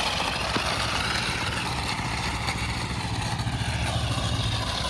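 A vehicle engine running steadily: a dense, even engine noise over a low hum, with no letting up.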